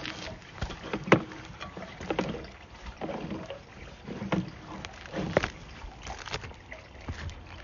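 Sewer inspection camera's push cable being fed by hand, with irregular knocks and rattles and a few brief squeaks.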